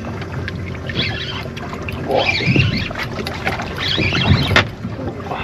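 A boat's engine running steadily, with a sharp knock about four and a half seconds in.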